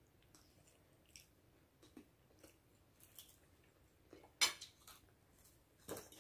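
People eating spicy noodles: faint chewing with scattered small clicks of forks on plates, and a sharper clink about four seconds in and again near the end.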